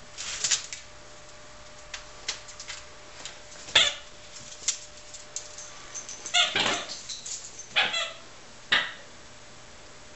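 A small dog's short, sharp play barks, about half a dozen spread over several seconds, the loudest near the middle.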